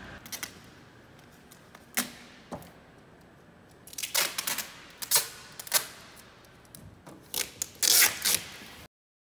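Adhesive seal tape being pulled off its roll and pressed onto a van's door: a string of short rips and crackles, coming more often and louder in the second half, then cutting off suddenly.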